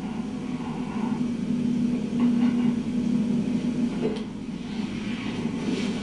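Low steady rumble, with a few faint clicks from about two-thirds of the way in.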